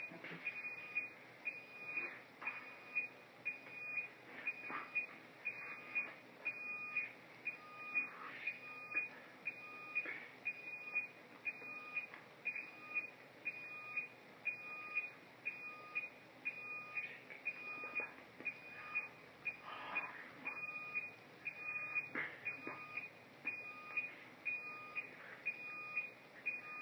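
Short high electronic beeps repeating evenly about twice a second, with a lower beep joining on many of the beats.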